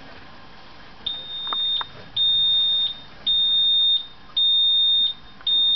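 An electronic beeper sounding a high, steady tone in even beeps about once a second, starting about a second in, five times.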